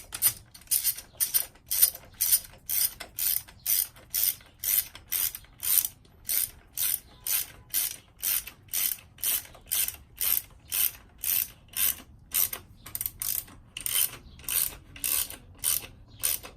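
A 3/8-inch ratchet with a hex bit clicking in steady back-and-forth strokes, about two strokes a second, as it runs a frame slider bolt into the motorcycle frame before it is snug.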